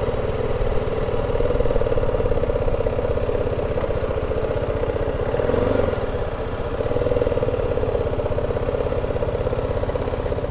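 Motorcycle engine running at low revs with an even pulsing beat as the bike rolls slowly in, easing off briefly about six seconds in.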